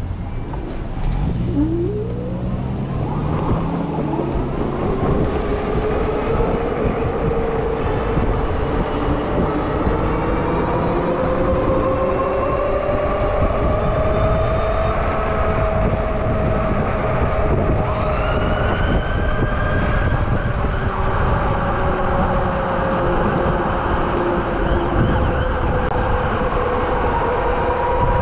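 Rize Blade 2 e-bike's electric motor whining, its pitch climbing steadily as the bike pulls away from a stop and then holding nearly level at cruising speed, over a steady rush of tyre and wind noise.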